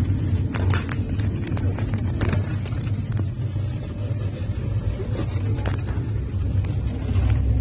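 Steady low road and engine rumble heard inside a moving minibus, with a few light knocks and rattles through it.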